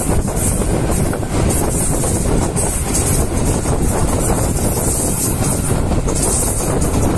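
Train running along the track, heard from the moving train itself: a steady, dense rumble of wheels on rails, with wind rushing past the microphone.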